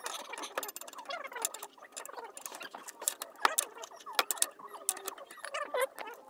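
Irregular sharp metallic clicks and clinks of a wrench working on a car's brake caliper bolts as they are undone.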